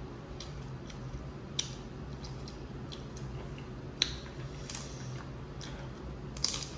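Close-up eating sounds from a seafood boil: wet squishing and chewing with scattered sharp clicks and cracks, the loudest about four seconds in.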